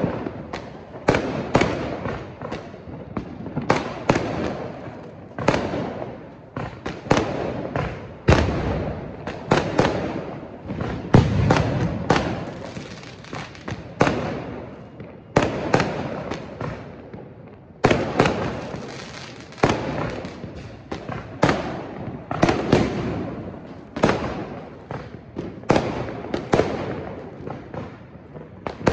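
Aerial sky-shot fireworks going off in a steady string of sharp bangs, one or two a second, each trailing off in an echo.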